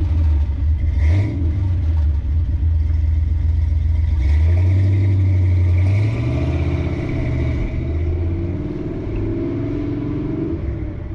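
A 1955 Chevrolet 3100 pickup's 355 cubic-inch V8, which carries a big cam, pulling away. It revs up briefly about a second in and climbs in pitch from about four to six seconds in. It then eases off and fades as the truck drives off.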